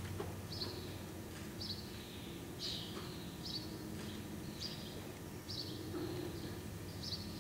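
A small bird chirping over and over, short high falling notes roughly once a second, over a steady low hum.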